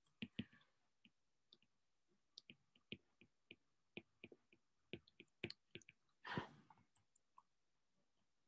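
Faint, irregular taps and clicks of a stylus on a tablet screen as handwritten letters are drawn, a few per second. A short soft rush of noise comes about six seconds in.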